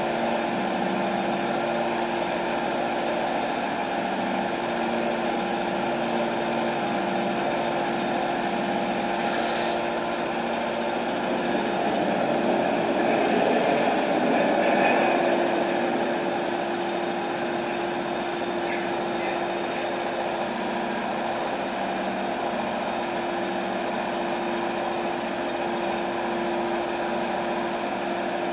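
TimberKing 1220 bandsaw mill's engine running steadily at idle, briefly getting louder about halfway through and then settling back.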